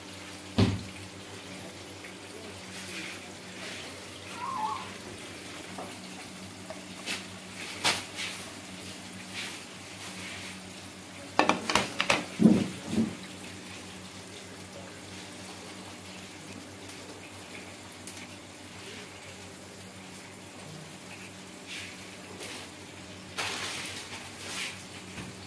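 Clanks and clatters of kitchen utensils and food on a flat steel street-food griddle over a steady low hum: a sharp knock near the start, a loud cluster of clatters about halfway through, and more near the end.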